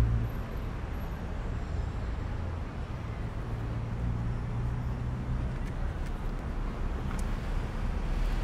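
Steady street traffic noise with a low engine hum that swells and fades.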